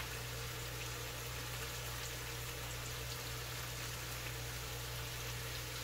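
Sliced bell peppers and onions sizzling steadily in a frying pan, a soft even hiss with faint crackles, over a constant low hum.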